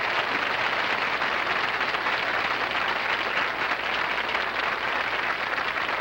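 Studio audience applauding steadily, a dense even clatter of many hands clapping, welcoming a guest onstage.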